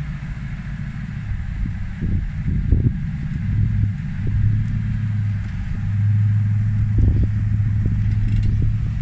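Toyota Hilux pickup engine running at low revs as the truck creeps onto an aluminium canopy, with a few dull thumps as its tyres bear down on the canopy, about two seconds in, again just under three seconds in, and about seven seconds in.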